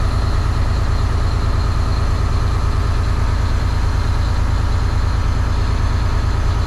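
Diesel engine running steadily at a raised idle of about 1,100 rpm during a service DPF regeneration, with a deep, fast, even pulse. The engine is held at this speed to heat the exhaust to about 500°C and burn off soot in the particulate filter.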